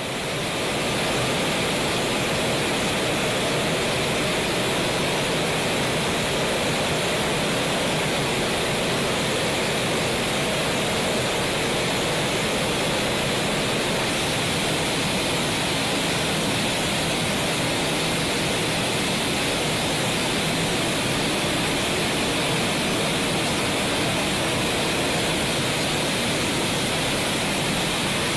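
A steady, loud rushing roar with no rhythm or clear pitch, rising in over the first second and then holding even.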